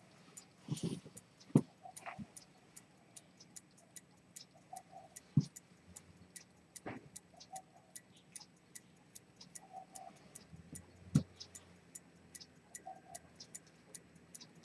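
A key-wound fusee pocket watch with a pivoted-detent chronometer escapement ticking quickly and evenly, with a few louder, isolated knocks in between.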